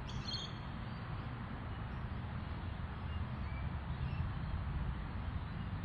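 Faint, steady outdoor background noise: a low rumble and light hiss with no distinct event in it.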